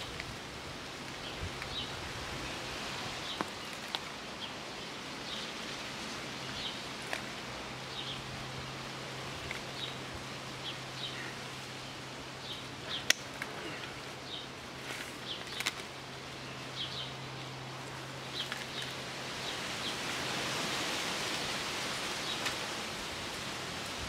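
Outdoor garden ambience: small birds chirping now and then over a steady background hiss and a low hum that stops near the end. A few sharp clicks and rustles come from hands working a plastic bucket and soil in the grass.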